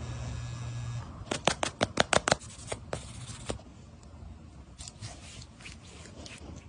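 A small battery-powered massage applicator hums steadily for about a second and then switches off. A quick run of about eight sharp clicks and taps follows, then a short squeeze-like hiss and soft handling and rubbing sounds from a tube of hand cream and hands.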